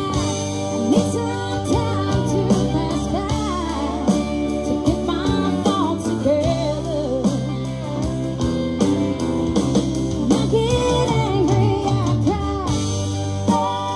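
Live band playing a blues-rock song: a woman singing over acoustic and electric guitars and a drum kit.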